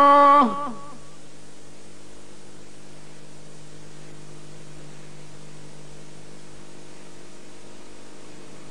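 A man's Quran recitation ends a held note with a downward slide in pitch about half a second in. Then a steady electrical hum and hiss from the old recording fill the pause.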